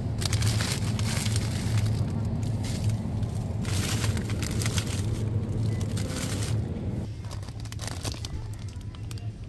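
Plastic food packaging crinkling as it is handled, in two bouts, over a steady low hum that drops away about seven seconds in.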